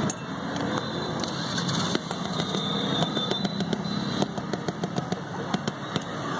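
Busy street background: a steady engine and traffic rumble with frequent light clicks and clinks.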